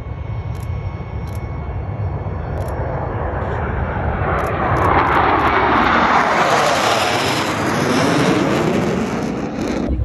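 A formation of four U.S. Navy Blue Angels F/A-18 Super Hornets, each with twin jet engines, passing low overhead. The jet roar builds to a peak about halfway through with a sweeping, phasing sound as they pass, then eases and cuts off abruptly at the end.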